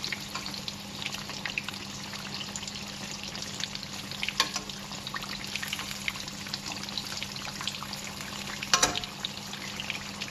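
Sesame prawn toasts deep-frying in hot vegetable oil in a wok: steady sizzling and crackling over a low steady hum, with two sharper clicks about four and nine seconds in.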